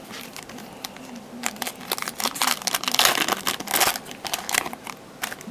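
Foil wrapper of a trading-card pack crinkling as it is torn open and handled, a dense run of crackles for about three seconds, busiest in the middle.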